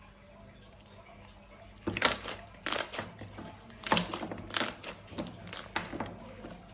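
Slime being squeezed and worked by hand: a run of sticky, crackling pops and squelches starting about two seconds in, loudest near the start and again about halfway through, dying down near the end.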